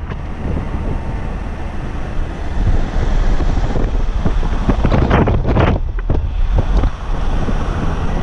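Wind rushing over the microphone with the low road and engine rumble of a car driving along at speed. The noise shifts abruptly a few times.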